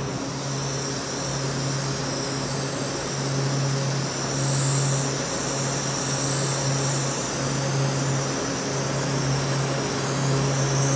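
Brazing torch flame hissing steadily while a copper joint on a new ball valve is brazed, over a steady low machine hum.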